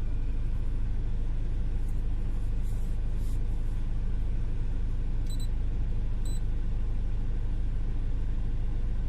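BMW engine idling with a steady low hum. Two short, high electronic beeps come about a second apart midway.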